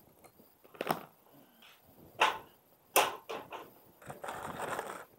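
Several sharp clicks and knocks of hand tools and a small aluminium mounting rail being handled and set down on a tabletop, then about a second of rustling near the end.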